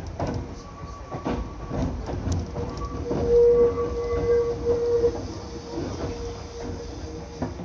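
JR 205 series electric train running, its wheels clicking and knocking over rail joints with a low rumble. A steady squealing tone rises about halfway through and then fades.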